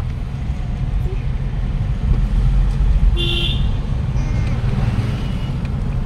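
Steady low rumble of a car's engine and road noise heard from inside the cabin while driving, with a short vehicle horn toot about three seconds in.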